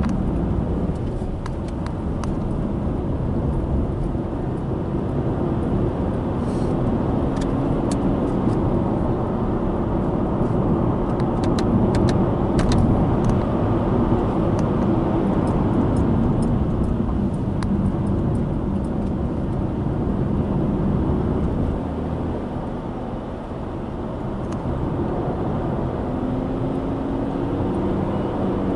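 Subaru Impreza Sport's FB16 1.6-litre flat-four running under light load on a downhill drive, a steady low hum and tyre rush with the engine note slowly rising and falling. Scattered light ticks sound over it, and it eases off briefly a little after two-thirds of the way through.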